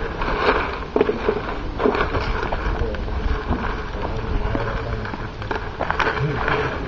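Footsteps on rough ground mixed with rustling handling noise from a handheld camcorder: a steady crackling hiss broken by irregular crunches and knocks, roughly one every half second to second.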